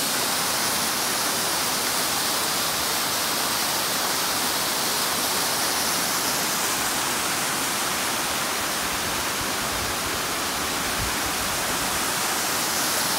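Waterfall cascading over rock ledges and boulders: a steady rush of falling water.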